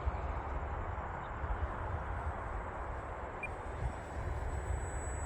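Strong wind buffeting the microphone: a steady, gusty low rumble with a spread of rushing noise.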